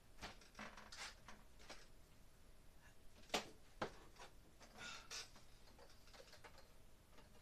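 Faint, scattered clicks and short rustles of hands handling electrical wiring and its fastenings overhead, with a sharper click about three and a half seconds in and another just after.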